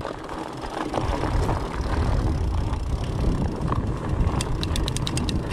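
Fat bike rolling on a dirt trail on its 4.8-inch tyres: a steady, uneven rumble of tyres and air on the camera microphone that swells as the bike gets moving. Near the end comes a quick run of light ticks.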